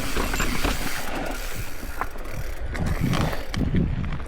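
Mountain bike rattling and clicking as it rolls over loose rocky ground, with wind on the microphone.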